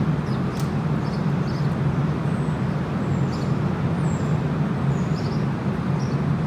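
Steady low rumble of street traffic, with a few brief, faint high chirps scattered through it.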